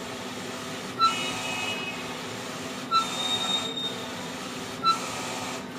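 Wide-format dye-sublimation inkjet printer running a print job: a steady mechanical hum with the print-head carriage sweeping back and forth. Each pass begins with a sharp peak and a short high tone, about every two seconds, three times.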